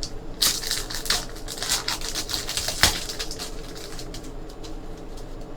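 Trading cards and their pack wrappers being handled: a dense stretch of papery rustling and rapid flicks for about the first three seconds, a sharp tap near three seconds, then lighter flicking.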